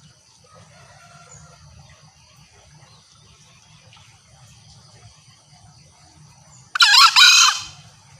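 Green junglefowl giving one short, loud, shrill two-part crow near the end, over faint steady insect trilling.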